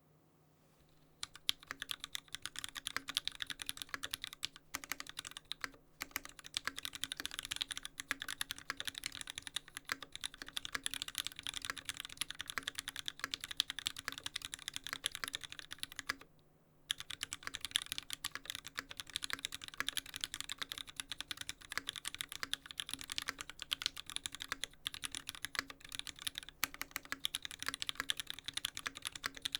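Fast, continuous typing on an LZ Stan custom mechanical keyboard with lubed Gateron Yellow linear switches (black tops, films), an aluminium plate, no dampening and GMK keycaps, on a desk pad. It starts about a second in and has a brief pause a little past halfway.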